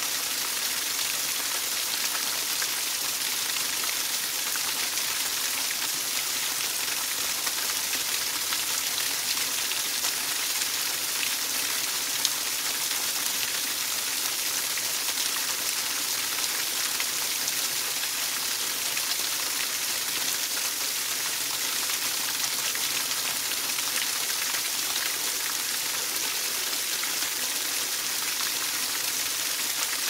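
Small waterfall, a thin stream of water falling onto wet rocks and pebbles, splashing steadily with a close, hissy patter.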